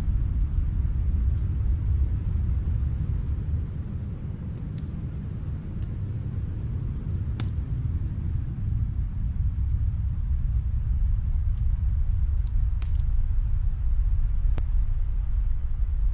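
Wood fire crackling, with scattered sharp pops and snaps over a deep low rumble that eases off a few seconds in and then builds again.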